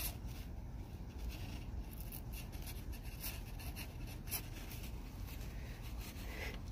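Faint rustling and scratching of a cloth snake bag being worked open by hand, with a few soft ticks scattered through, over a low steady background hum.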